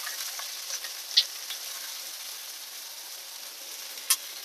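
Sliced onion, garlic and ginger sizzling in hot oil in a non-stick wok: a steady frying hiss, with two sharp pops of spitting oil, one about a second in and one near the end.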